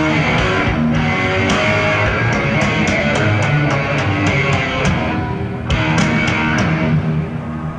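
Heavy metal band playing live: a distorted electric guitar riff over drums, with regular cymbal ticks through the middle, heard from an audience bootleg recording.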